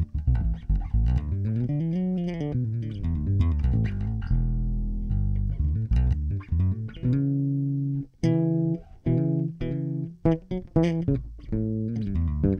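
Electric bass played fingerstyle, a groove with notes sliding up and down in pitch, a held note about four seconds in, then short plucked notes. The tone comes from where the plucking hand is placed on the strings, with the bass's settings unchanged.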